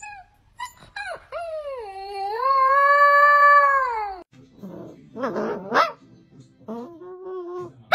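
Black-and-white husky-type puppy howling: a few short rising yips, then one long held howl that breaks off about four seconds in. Quieter snuffly noises and short whimpers follow.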